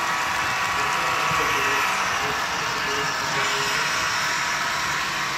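A model train running on a layout: a steady mechanical running noise.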